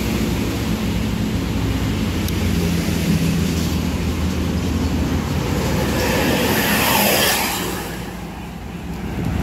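Sumber Alam intercity coach approaching and passing close by, its diesel engine running steadily, with the rush of its tyres loudest about seven seconds in before it fades as the coach pulls away.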